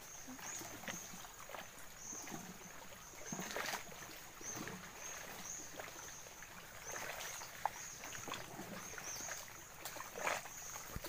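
Shallow water lapping and sloshing around a person wading, with a couple of louder swishes. A faint high chirp repeats about twice a second throughout.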